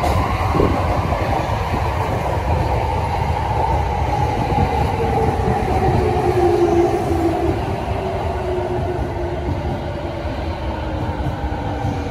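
Tokyo Waterfront Area Rapid Transit 70-000 series electric train rolling past along the platform as it slows. Its traction motors whine in two tones that slowly fall in pitch, over a steady wheel-on-rail rumble.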